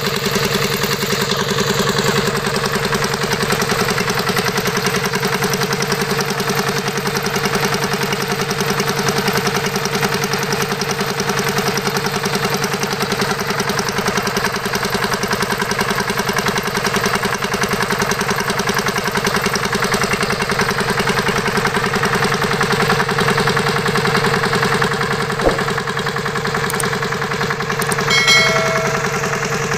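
Miniature diesel water-pump model running steadily, a fast, even chugging hum.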